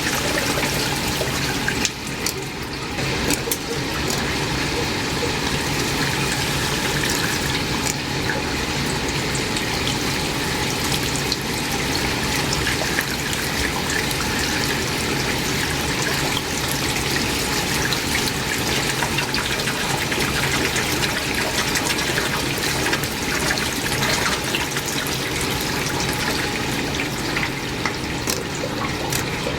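Water running steadily out of a water heater's drain as the tank is emptied, flushing out hard-water deposit and sand.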